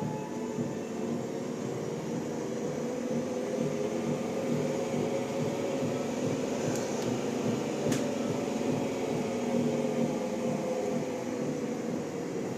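Treadmill running: a steady motor hum, with a single faint click about eight seconds in.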